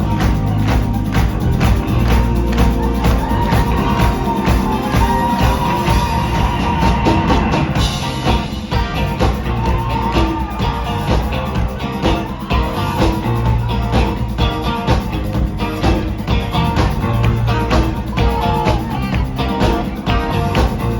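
Live rock band playing a yacht-rock song, with singing over drum kit and bass and a steady beat.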